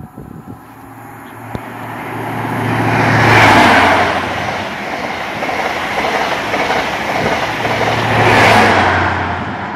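InterCity 125 HST, Class 43 diesel power cars with Mark 3 coaches, passing at speed: a low diesel hum and rushing wheel-on-rail noise build up, peak as the leading power car goes by, hold steady while the coaches rush past, and peak again near the end as the rear power car passes.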